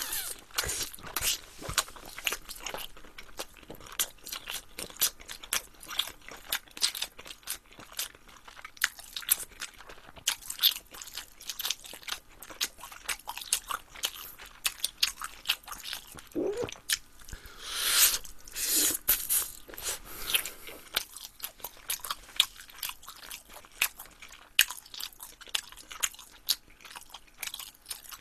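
Close-miked chewing and crunching of a glazed sausage-and-rice-cake skewer (sotteok), with many quick wet clicks and crunches of the bites. There is a louder noisy rush about eighteen seconds in.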